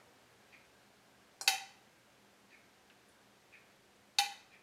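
A metal spoon clinking against a stainless-steel bowl while tomato sauce is spooned out: two sharp ringing clinks, about a second and a half in and again near the end, with a few faint taps between.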